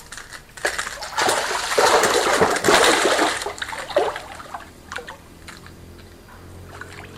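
A hooked fish thrashing and splashing at the water's surface. There is a loud burst of splashing lasting about two seconds, then a few single splashes.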